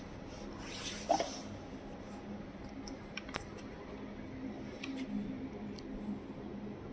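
Faint steady hum of an idling linear vibration welding machine, with a small knock about a second in and a few light clicks.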